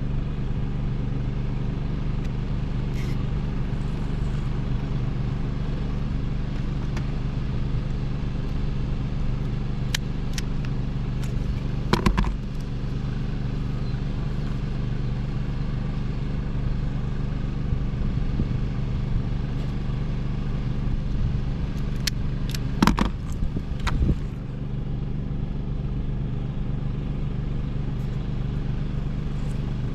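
A steady low machine hum, with a few clicks and clattering knocks about ten, twelve and twenty-three seconds in.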